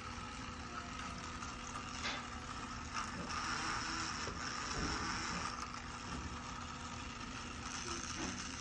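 Small electric motor of a battery-powered toy car running steadily, with a couple of clicks about two and three seconds in.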